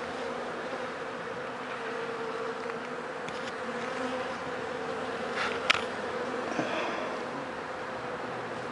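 Honeybees buzzing around an opened hive, a steady hum. A single sharp click about two-thirds of the way through.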